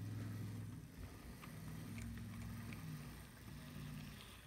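Hornby Mallard model locomotive's small electric motor humming faintly as it crawls along the track at a very low throttle setting. The hum wavers in pitch and level, with a few light ticks.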